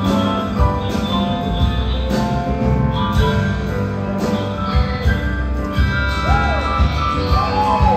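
Rock band and symphony orchestra playing an instrumental passage live, with held chords over a steady drum beat. A few sliding notes come in near the end.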